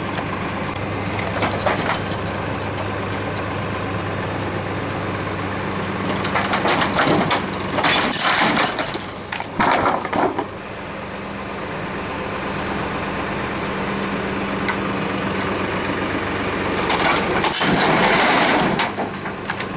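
Tractor engine running steadily, with loud bursts of crashing and rattling over it, the biggest around 7 to 10 seconds in and again near the end.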